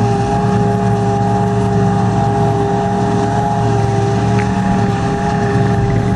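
John Deere 7750i self-propelled forage harvester chopping grass into a silage trailer, with a New Holland tractor running alongside it. Together they make a steady machine drone with a constant hum.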